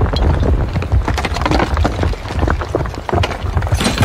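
Crashing, crumbling debris sound effect: a rapid clatter of many small knocks and cracks over a low rumble, as a structure of blocks collapses, with a brighter rush of noise near the end.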